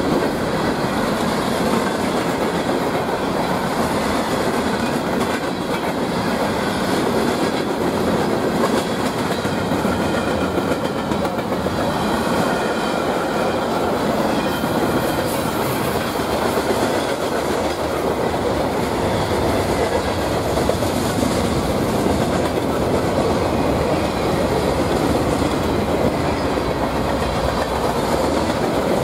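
A long freight train's empty rock hoppers and mixed freight cars rolling past close by. The wheels on the rails make a steady noise with no big rise or fall.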